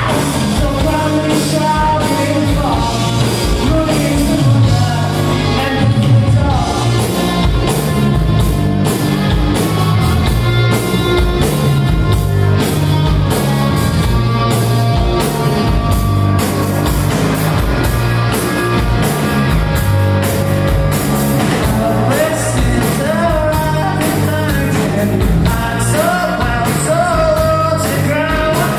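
Live rock band playing loudly: electric guitars, bass and a steady drum beat, with a sung vocal coming in strongly over the last few seconds.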